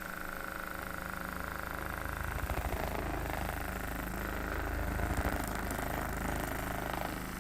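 Electric handheld massager running with a steady low hum for soft-tissue muscle work, louder in the middle of the stretch.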